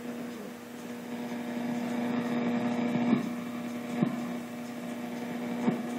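ICOM IC-7410 receiver in AM mode giving out shortwave static and hiss while it is tuned quickly up the 6 MHz band between stations, over a steady low hum. Three sharp crackles come about halfway through, a second later, and near the end.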